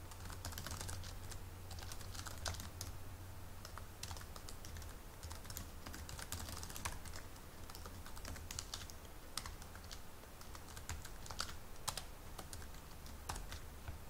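Typing on a computer keyboard: a run of irregular key clicks, with a low steady hum underneath.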